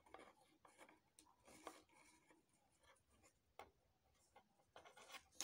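Faint, irregular scratching and rustling of needle and thread being pulled through the stiff mesh of a moulded fascinator base while a headband is hand-stitched on, a little louder near the end.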